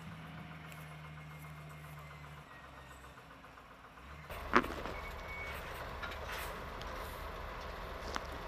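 Large truck's diesel engine running steadily at idle, then, after a single sharp knock about four and a half seconds in, running with a steady low rumble as the truck, ratchet tyre chains on its rear wheels, drives out of a shallow snow trench.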